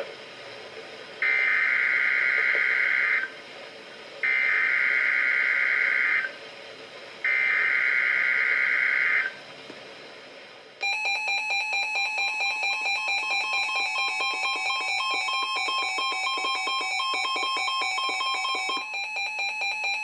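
Weather radios sounding an EAS/SAME alert: three buzzy digital header bursts of about two seconds each, a second apart, then a steady warning alarm tone mixed with the receivers' own rapid pulsing alert beeps. The steady tone stops shortly before the end while the beeping goes on.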